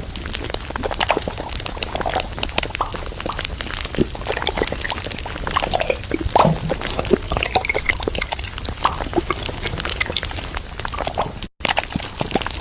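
Food containers and packaging being handled and set down while stocking a fridge: a busy run of small clicks, knocks and rustles, broken by a short gap near the end.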